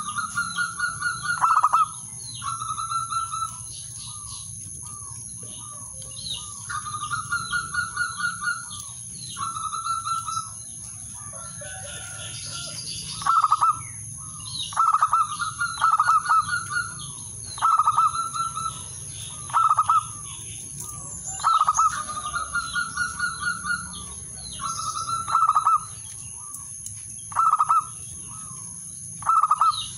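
Male zebra dove cooing, the call a male uses to challenge rivals. It gives repeated phrases of quick staccato notes, with louder clipped coos every second or two.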